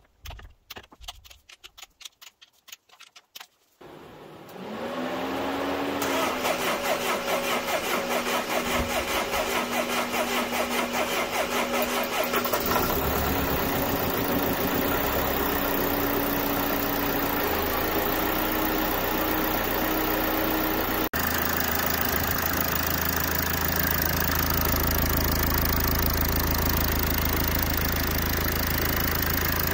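A few light clicks of hand tools, then about four seconds in a Mercedes OM646 CDI four-cylinder diesel engine starts and settles into a steady idle, its pitch stepping up slightly a couple of times. This is the first start after new injector copper seals have been fitted and the injectors and high-pressure pipes retightened.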